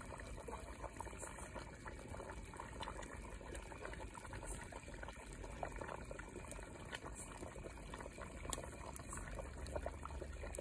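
A metal pot of chicken curry bubbling steadily over a wood fire, faint, with scattered small clicks.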